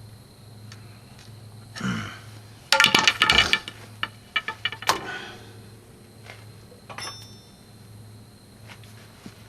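Metal tools and parts clanking and rattling for about a second, about three seconds in, followed by a few sharp metallic clicks, over a steady low hum.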